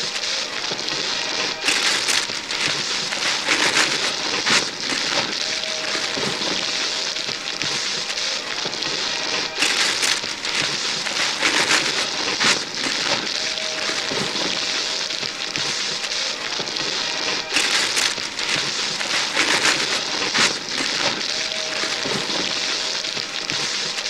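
Hands tearing and crumpling gift wrapping paper off boxes: a continuous papery rustle broken by sharper rips. The same few seconds of ripping repeat about every eight seconds.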